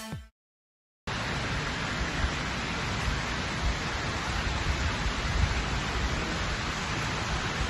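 Steady rush of running, splashing water from many fountain spouts, starting about a second in after a brief silence.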